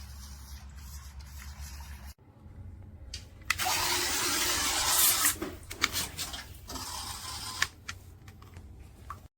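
Water splashing and rushing for a few seconds, loudest in the middle, after an abrupt cut about two seconds in.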